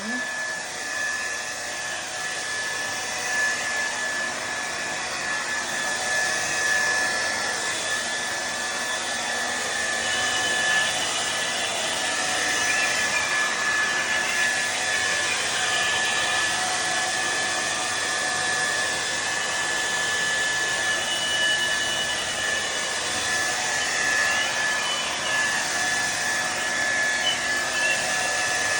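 Tresemmé Smooth and Shine hair dryer running steadily: a constant rush of air with a steady high-pitched motor whine.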